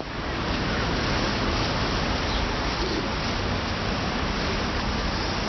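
Steady outdoor background noise: an even, unbroken hiss with no distinct events.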